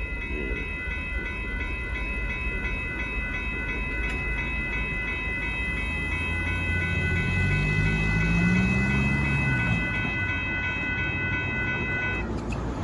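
Railroad grade-crossing warning bells ringing steadily over the low rumble of a passing Amtrak passenger train. The bells stop near the end as the crossing gates come back up.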